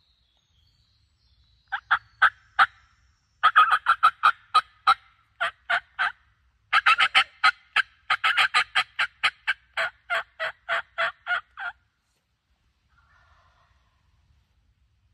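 Hen turkey yelps on a hunter's turkey call, loud and close: runs of sharp, evenly spaced notes, some bunched fast and others about four a second, calling to a gobbler.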